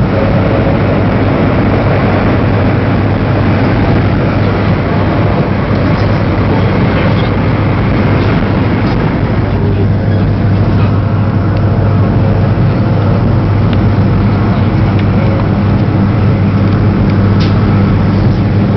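Cabin noise of a CRH high-speed train running at speed: a steady rumble and rush with a constant low hum.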